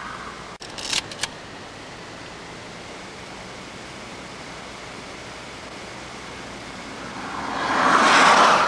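Steady outdoor rushing noise on an old camcorder soundtrack, broken by a brief dropout and two sharp clicks about a second in. Near the end a broad whooshing noise swells up over about two seconds to the loudest point and then fades.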